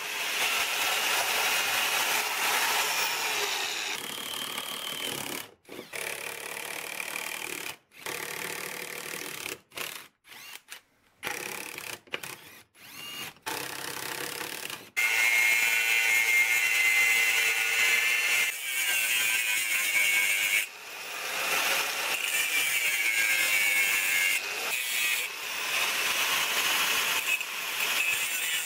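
Angle grinder with a cutoff disc cutting through a steel bracket clamped in a vise, a steady high-pitched grinding. Around the middle it is broken into short pieces, with a power drill boring through a steel bar among them.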